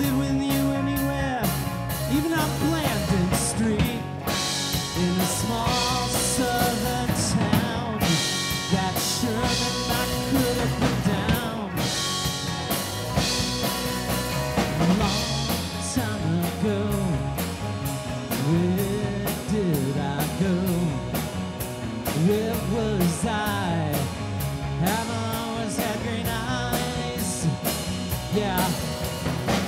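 Live indie rock band playing: two electric guitars, electric bass and a drum kit with steady cymbal strokes, under a lead line that slides up and down in pitch.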